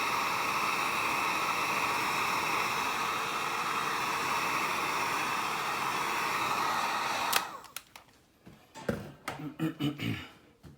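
Handheld hot-air blower running steadily as it dries fresh paint. It switches off with a click about seven seconds in, followed by a few light knocks of handling.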